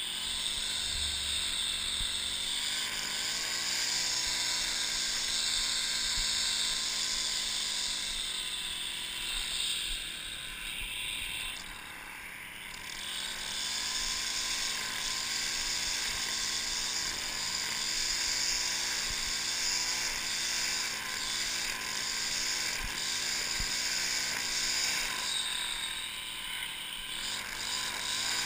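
String trimmer running while cutting grass along a lawn edge, its motor pitch wavering up and down as the line meets the grass.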